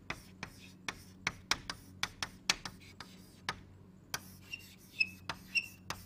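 Handwriting: a run of quick, irregular taps and strokes of a writing tool on a surface, with a few short high squeaks near the end. A steady low electrical hum runs underneath.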